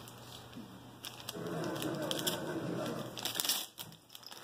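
Gift wrapping paper crinkling and rustling, with scattered light clicks of a plastic toy lawn mower being handled in its box.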